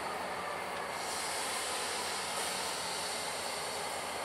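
Steady hiss over CSX EMD diesel locomotives standing on the track with their engines running.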